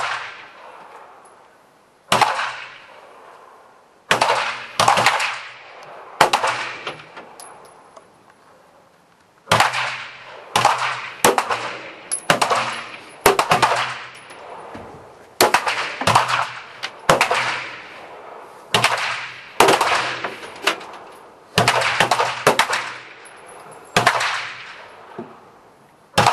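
Pistol shots from several finalists firing independently at precision targets: about twenty shots at uneven intervals, sometimes two or three in quick succession, each followed by a decaying echo. The pistols are weapon-group A service-type pistols.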